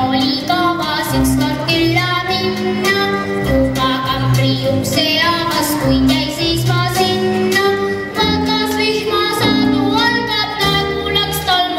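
A song with a singing voice over instruments and a bass line that moves from note to note, playing steadily throughout.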